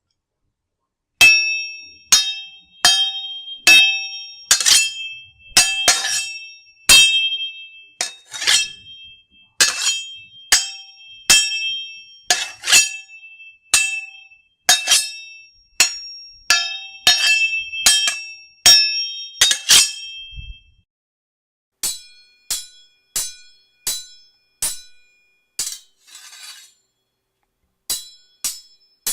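Steel sword blades clashing: a run of sharp metallic clangs, about one and a half a second, each leaving a high ringing tone. About twenty seconds in they stop, then a lighter series of clinks with a different ring follows, broken once by a short swish.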